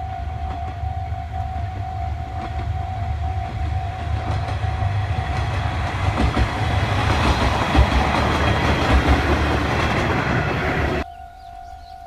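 Level-crossing alarm ringing in a steady pulsing tone while a two-car Aizu Railway AT-400 and AT-351 diesel railcar train passes over the crossing, its rumble and wheel clatter growing louder through the second half. The train noise cuts off suddenly about eleven seconds in, leaving the crossing alarm ringing alone.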